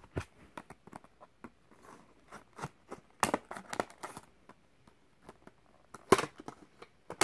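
Clear plastic blister packaging of a diecast car crinkling and clicking as it is handled and opened, with two louder sharp snaps, about three seconds in and about six seconds in.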